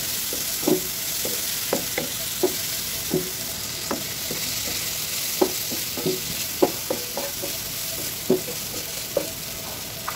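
Hilsa fish pieces with onions and green chillies sizzling in hot oil in a frying pan, while a wooden spatula stirs them, knocking and scraping against the pan in irregular taps.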